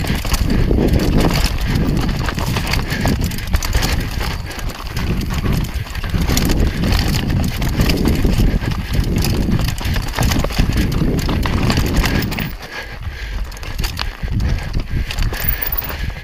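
Mountain bike descending a rocky trail: tyres rolling and crunching over loose stones and rock with constant rattling knocks from the bike. It eases for a moment about three-quarters of the way in.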